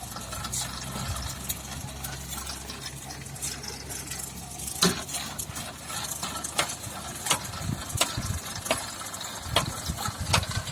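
Homemade electric-motor-driven sand sieve running: a steady low motor hum that fades about halfway through, with sharp irregular clicks and knocks of the shaking sieve throughout.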